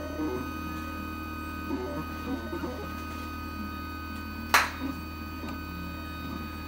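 SKYJET V24 cutting plotter running as its blade carriage cuts a 200-micron plastic sheet: uneven short motor movements over a steady hum and a thin high whine. A single sharp click comes about four and a half seconds in.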